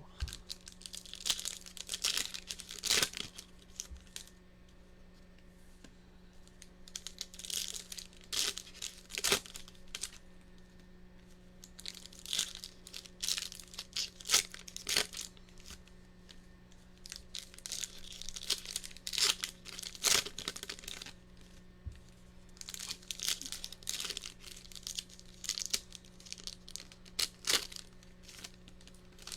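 Trading-card pack wrappers being torn open and crinkled by hand, in several bouts of crackling and sharp tearing a few seconds apart.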